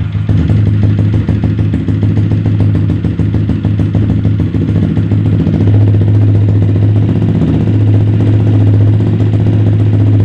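Yamaha Jupiter MX's single-cylinder four-stroke engine, stock bore with a PE28 carburettor, running through an RCB oval aftermarket racing muffler: a loud, low exhaust note with rapid firing pulses. The note steadies and fills out a little about halfway through.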